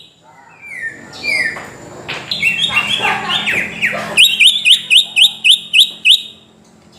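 Greater green leafbird (cucak ijo) singing: a jumble of varied whistled notes, many sliding downward, then a fast run of about nine sharp, repeated chirps starting about four seconds in, which stops about a second before the end.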